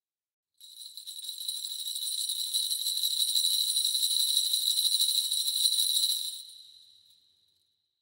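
Kagura suzu, a Shinto bell tree of small metal crotal bells with loose balls inside, shaken in a continuous bright jingle. It starts about half a second in, swells, holds, and dies away over the last two seconds.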